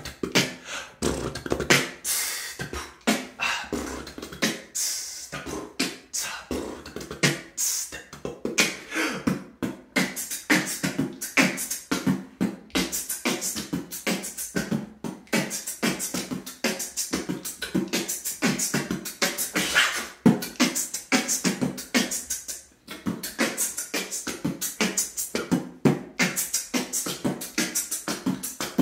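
A man beatboxing: a dense, continuous run of vocal drum sounds (kicks, snares and hi-hat clicks) made with the mouth, some with pitched tones under them, sounding in the hard acoustics of a small bathroom.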